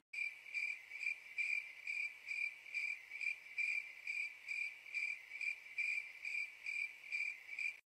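Cricket chirping in a steady rhythm, a little over two short chirps a second at one unchanging pitch.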